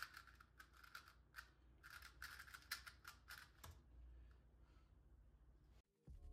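Plastic puzzle cube being turned rapidly by hand in a speedsolve: quick clicks and clacks of the layers snapping round, stopping about four seconds in.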